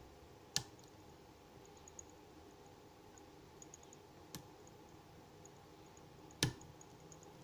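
Lock pick and tension wrench working the pins of a 38 mm aluminium Smith & Locke padlock. Three sharp clicks come just after the start, about four and a half seconds in and near the end, typical of pins setting or the core shifting into a false set, with faint light ticking of the pick between them.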